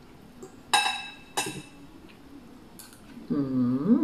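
A spoon clinks twice against a dish with a short ringing tone, about a second apart. Near the end comes a brief hummed 'mmm' from someone chewing food.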